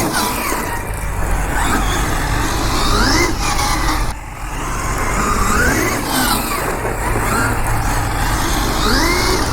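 Losi 6IX RC car's motor whining up and down in pitch as the throttle is worked in repeated short bursts, with tyre and wind noise underneath.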